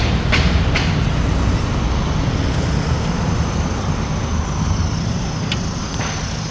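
Steady rumble of a moving road vehicle heard from inside, engine and road noise, with a few sharp clicks in the first second.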